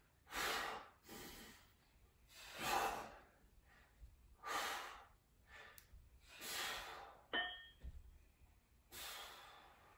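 Breathing during dumbbell presses: about six forceful exhalations, one every one to two seconds in time with the reps. A brief click with a short ring about seven seconds in.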